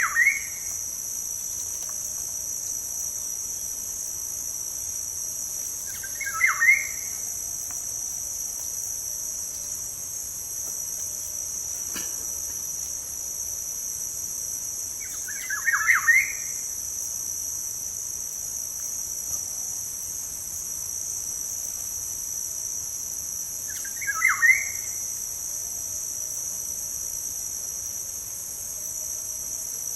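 Peacock calling, short loud calls repeated about every eight to nine seconds, over a steady high-pitched drone of insects.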